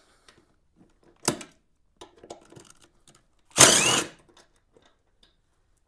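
Cordless drill/driver spinning a socket on a motorcycle seat bolt in one short run of about half a second, its whine rising as it backs the bolt out. A faint click comes about a second in.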